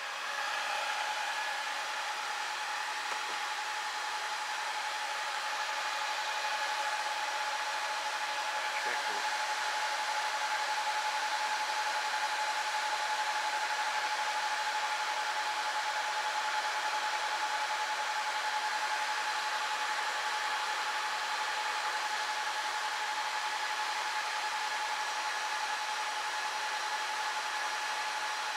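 Dell PowerEdge 2650 server's cooling fans running at speed: a steady rush of air with a constant whine, stepping up slightly about half a second in.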